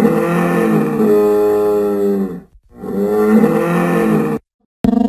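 A dinosaur roar sound effect standing for Spinosaurus: two long, loud, pitched roars with a short break between them. A sharp click near the end leads into a third roar.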